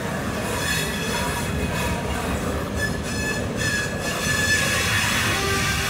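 Covered hopper cars rolling slowly on jointed track behind a switcher locomotive, their wheels squealing in several high steady tones over a low rumble of steel wheels on rail.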